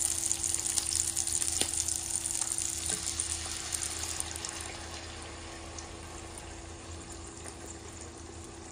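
Steady rushing, water-like noise with a low hum and a faint steady tone underneath; it is loudest at first and eases down over the first few seconds, then holds level.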